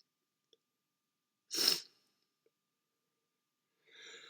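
A short, sharp sniff about a second and a half in from a man with a cold, between sneezes. Near the end comes a faint, breathy in-breath building up to the next sneeze.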